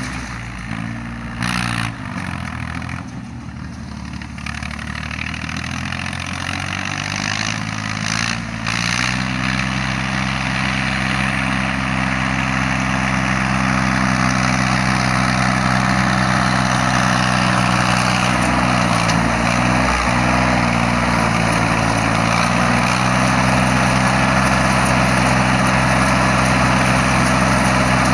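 Yanmar YM3000 tractor's three-cylinder Yanmar 3T84 diesel running steadily while it pulls a round straw baler. It grows louder over the first dozen seconds as it comes closer, then holds. Two short knocks come in the first nine seconds.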